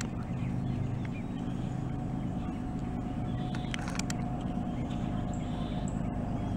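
A steady low engine drone, with a few faint bird chirps.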